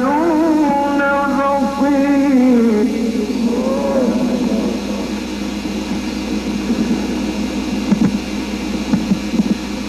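Male voice chanting in long, drawn-out melodic phrases, in the manner of Quran recitation. About three seconds in, the melodic line gives way to a rougher, less tuneful stretch at a similar loudness.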